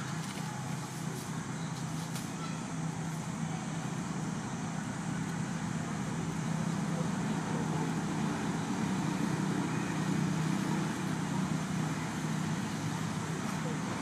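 Steady low rumbling background noise that swells slightly in the middle, with a few faint clicks near the start.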